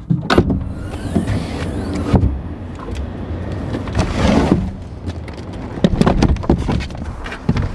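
Luggage being loaded into a car boot: a series of knocks, thumps and clicks as hard suitcases and bags are set down and shifted, with a longer scraping rustle about four seconds in.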